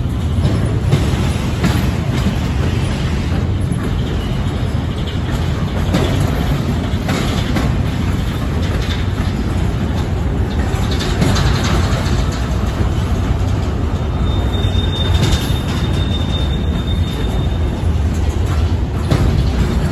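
Empty intermodal well cars of a freight train rolling past on steel wheels: a steady loud rumble with irregular clanks, and a faint thin high wheel squeal for about three seconds past the middle.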